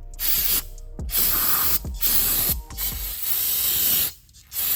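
Aerosol cleaner sprayed onto brake parts in several short hissing bursts, the solvent wash given before the parts are left to dry.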